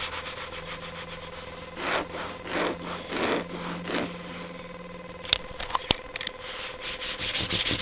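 Bedding rustling and rubbing: four rough swishes about two seconds in, a couple of sharp clicks a little past five seconds, and quicker rustling building near the end, over a faint steady hum.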